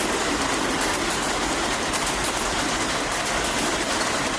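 Steady, even din of a gymnasium during a basketball game, with faint scattered ticks.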